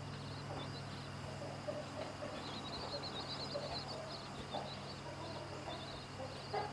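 Chicks peeping faintly in many short, high notes, with a few soft low clucks from the mother hen, over a steady low hum.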